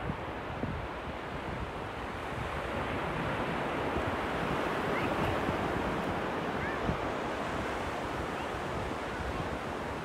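Surf breaking along a beach: a steady wash that swells louder midway and then eases, with wind buffeting the microphone.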